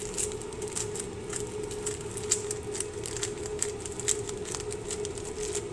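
Scissors cutting through a plastic food packet: a string of irregular small snips and crinkles of the plastic, over a steady low hum.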